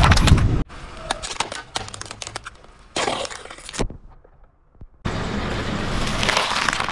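Car tyre rolling slowly over things and crushing them, in quick cuts: a loud crunching of plastic bottles that stops abruptly, then a run of sharp little cracks and pops as a small object bursts under the tyre, then a steady crunching and snapping of lettuce leaves under the tyre.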